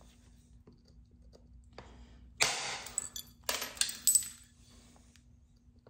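Heat-treated chert struck with a copper bopper: a sharp stone-on-metal strike about two and a half seconds in as a flake detaches and runs well across the knife's face, then a quick cluster of bright, ringing clinks about a second later.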